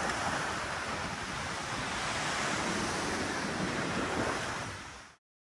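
Tsunami floodwater rushing and churning through a street, a steady wash of water noise mixed with wind on the microphone, fading out near the end.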